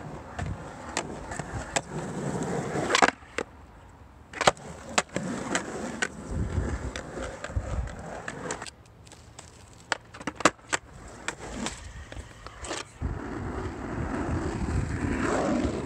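Skateboard wheels rolling on rough asphalt, the rumble swelling and fading as the board passes, with several sharp clacks of the board's deck and wheels knocking on the ground.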